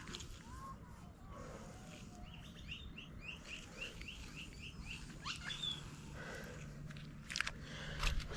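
A bird calling a rapid series of about a dozen short, high chirps, roughly six a second, for about two seconds. A few faint clicks follow near the end.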